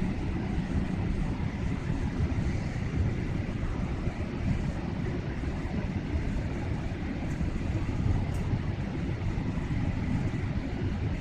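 Airliner cabin noise during descent toward landing: a steady low rumble of jet engines and air rushing past the fuselage, heard from inside at a window seat.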